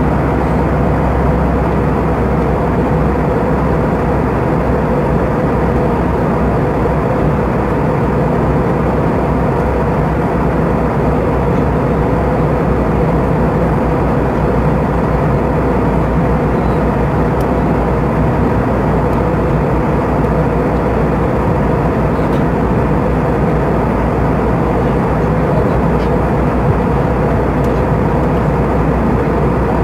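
Airbus A320 cabin noise in flight: the jet engines and rushing air make a steady, even roar, mostly low, with a faint constant hum running through it.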